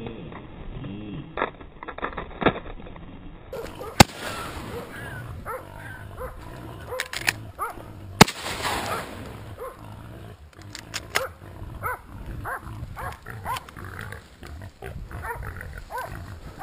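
Two shotgun shots, fired with buckshot, about four and eight seconds in, the loudest sounds here. Short, repeated squeals and grunts of wild boar run throughout and come thickly after the second shot.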